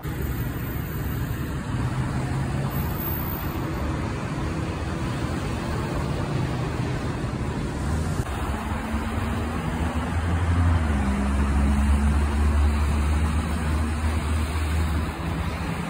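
Road traffic: passing vehicles and tyre hiss on a wet road. From about ten seconds in, a heavy truck's diesel engine comes in with a deep, steady drone that grows louder.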